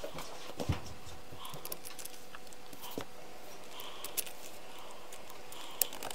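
Scattered light clicks and taps of plastic Shengshou 4x4 cube pieces being handled and pushed into place during reassembly.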